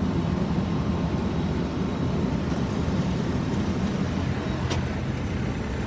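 A heavy machine's engine running steadily with a low rumble, with one short click about three-quarters of the way through.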